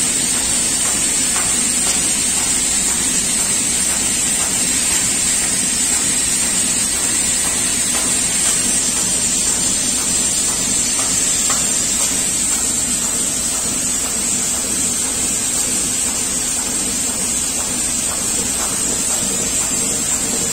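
Trumpf laser cutting machine, retrofitted with a fiber laser source, cutting sheet metal on the fly: a steady hiss of the cutting process with a high, even whine over the machine's running noise.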